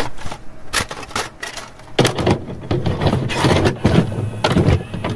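Glitch sound effect of crackling static: irregular bursts of noise and sharp crackles, the loudest about two seconds in.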